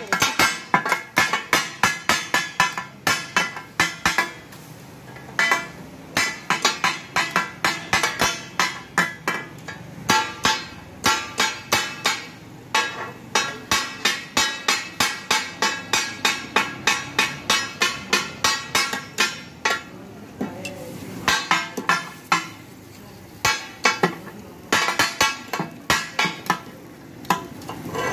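Steel spatula blades chopping mutton offal on a large flat iron griddle for takatak. It is a fast, rhythmic metal-on-metal clatter of about three ringing strikes a second, with a few short pauses. This clatter is what gives the dish its name.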